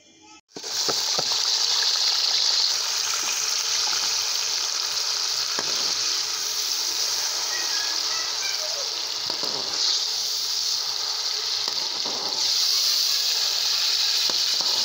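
Chopped onion mixture sizzling in hot ghee in a metal karahi. The sizzle starts suddenly about half a second in as the mixture goes into the fat, then stays steady, with light scraping of a metal spatula stirring through it.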